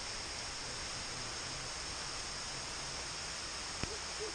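Steady hiss of rain falling on wet rock and vegetation, with one short sharp click nearly four seconds in.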